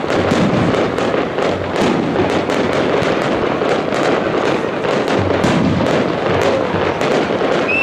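Fireworks display: aerial shells bursting and crackling in a dense, continuous barrage, several sharp bangs a second.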